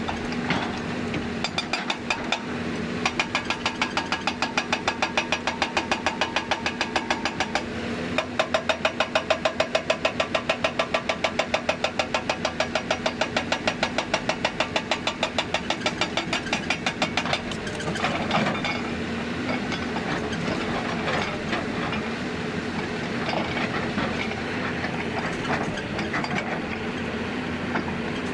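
Hyundai 290 excavator's diesel engine running while its hydraulic breaker hammers rock in a fast, even rhythm. The hammering stops about 17 seconds in, and the engine runs on with scattered clanks.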